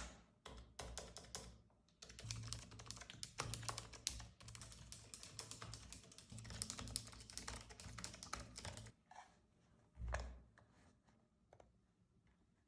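Typing on a Keychron B33 compact wireless keyboard, made for quiet typing: quick runs of soft key clicks that stop about three quarters of the way through, followed by a single knock.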